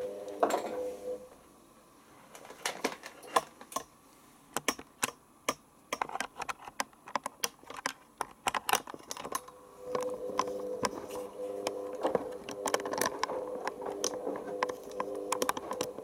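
Hoover Optima front-loading washing machine tumbling a load in its wash phase. The drum motor's steady hum stops about a second in. The tumbling load then gives a run of sharp clicks and knocks, and the motor hum starts again about ten seconds in, with more clicks.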